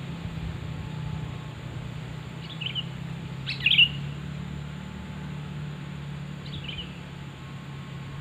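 Sooty-headed bulbul (kutilang) singing short, bubbling chirped phrases: a soft one about two and a half seconds in, a louder one a second later, and another soft one near the end. A steady low hum runs beneath.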